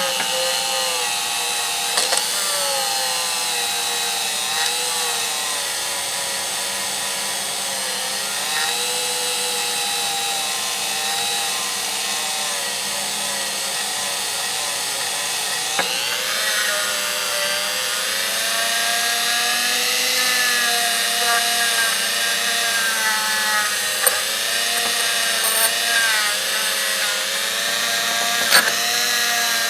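Electric polishing tool running steadily while a ratchet is polished on it, its motor pitch dipping and recovering as the work is pressed against it, with a few sharp clicks and knocks.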